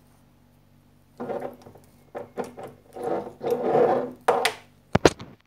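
Hands handling a perfume box and bottle on a shelf. After about a second of quiet there are about three seconds of rubbing and scraping, then a couple of sharp knocks near the end.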